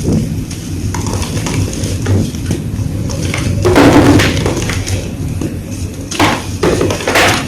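Blocks of gym chalk being crushed and crumbled, a run of dry crackling crunches with the loudest about four seconds in and two more sharp crunches near the end.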